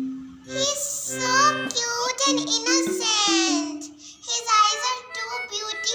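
Background music: a song with a high, child-like singing voice over held instrument notes.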